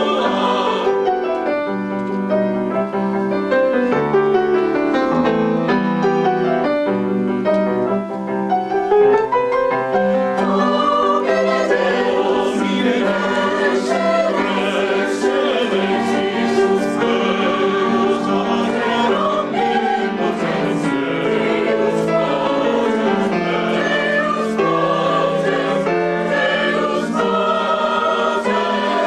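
Teenage choir singing a classical piece in parts, accompanied on a grand piano.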